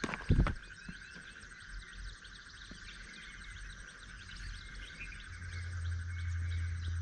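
Outdoor ambience of a steady insect chorus with bird chirps, a short thump just after the start, and a low hum that comes in a little past the middle.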